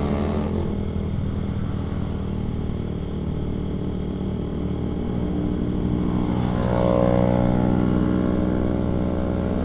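Motorcycle engine running steadily while riding. About six seconds in, a higher engine note rises and then holds.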